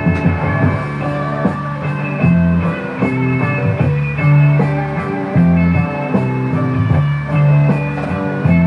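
Rock music led by guitar, with sustained notes over a steady bass line.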